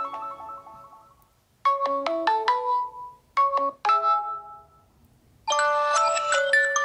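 Samsung Galaxy Note 10 Lite ringtones playing: one melody dies away, a short melodic phrase sounds twice with pauses between, and a fuller, busier ringtone begins near the end.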